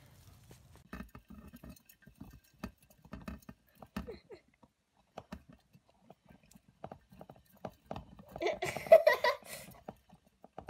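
Light, scattered pattering and clicking of two dwarf hamsters running together on a plastic saucer wheel, with a louder burst about nine seconds in.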